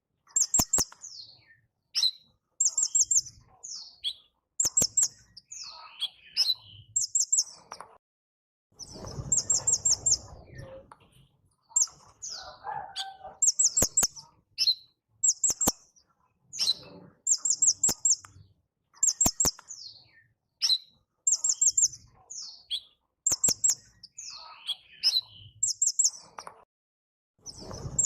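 A kincrong bird singing a repeated phrase about every two seconds: a quick run of about five very high notes, then a few lower slurred whistles. Sharp clicks and brief rustling noise come between some phrases.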